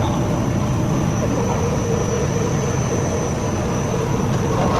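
Sawdust continuous carbonization furnace running: a steady, loud machine rumble with a constant high whine over it.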